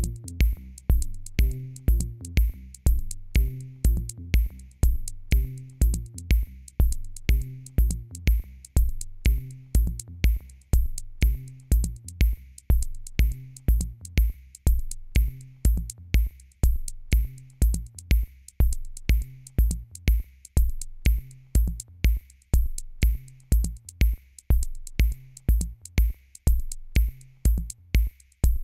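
Electronic background music: a drum-machine beat at about two hits a second over a bass line.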